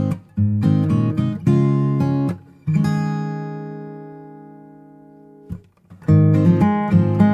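Background music: strummed acoustic guitar chords, with one chord left ringing and fading for about three seconds before the strumming resumes.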